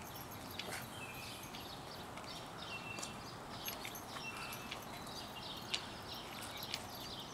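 Steady outdoor background noise with several faint, short, high-pitched chirps and a few light clicks.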